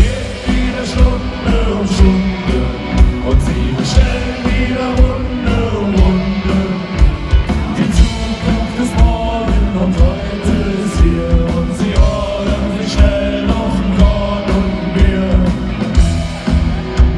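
Punk rock band playing live through a large PA, heard from the audience: distorted electric guitars, bass and a steady drum beat, with a sung lead vocal.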